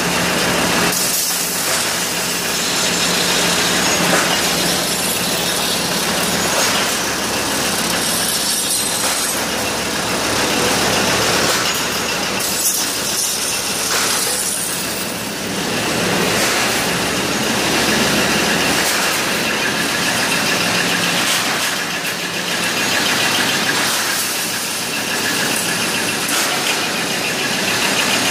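Loud, steady din of steel wire and rod processing machinery running in a metalworking factory, with no pauses.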